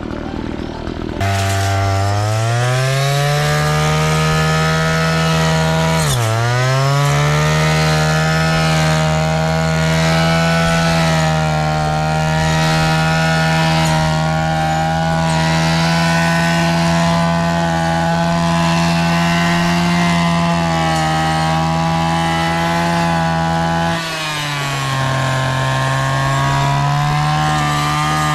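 Engine-powered brush cutter with a new tipped saw blade (chip saw), running at high throttle while cutting tall grass. The engine starts a little over a second in and revs up. It dips briefly about six seconds in, holds a steady high speed, then drops to a lower speed near the end before picking up again.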